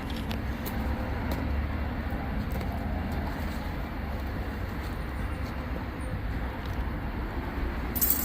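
Steady low rumble of workshop background noise, with a few faint clicks and a short rattle near the end.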